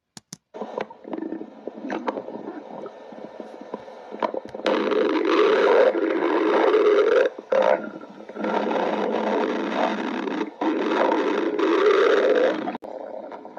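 Human stomach growling: a stretch of quieter gurgles, then three long, louder growls that rise and fall in pitch, each lasting a few seconds.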